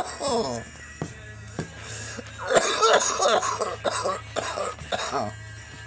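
A person coughing hard from cannabis smoke: one strained cough with a falling pitch at the start, then a rough coughing fit from about two and a half seconds in, dying away after about five seconds.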